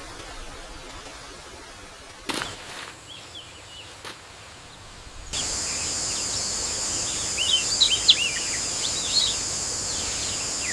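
Birds chirping, joined about halfway through by a steady high-pitched insect drone that runs on under the chirps. Before that, a short swish about two seconds in and a click a little later.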